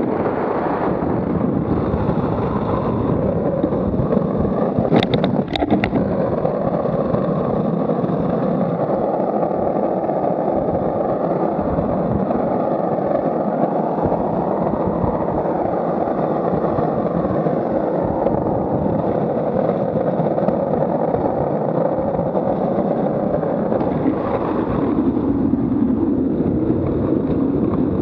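Wind rushing over the microphone together with the rolling roar of the Buggy Rollin wheel suit's skate wheels on asphalt, riding downhill at about 20 to 30 km/h. A few sharp clicks about five seconds in.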